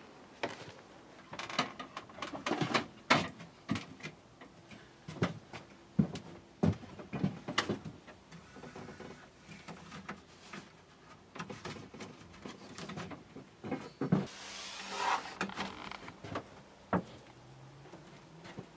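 Knocks, clicks and wooden clatter as a wooden shed door is unlocked and opened and things are handled inside the shed, with a rough scraping rub of about a second and a half near the three-quarter mark.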